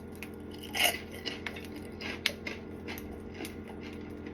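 Freshly microwaved pork rinds (chicharrones) crackling and popping: sparse, sharp little pops scattered through, a somewhat louder one about a second in and another around two seconds in.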